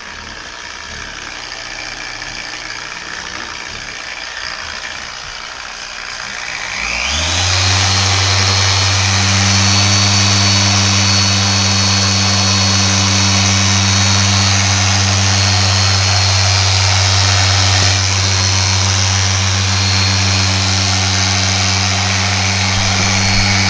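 Dual-action orbital polisher compounding a car's paint. Its motor speeds up about seven seconds in with a rising whine, then runs steadily with a high whine over a low hum.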